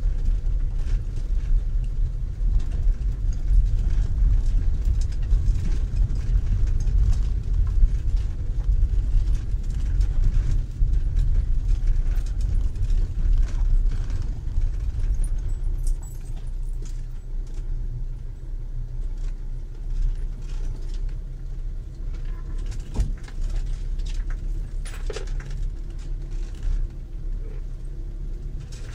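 Low rumble of a camping car driving slowly over a rough, potholed dirt road, heard from inside the cab, with a constant rattling and clattering of the vehicle's loose fittings and contents shaken by the bumps. The rumble and rattling ease and grow quieter a little past halfway.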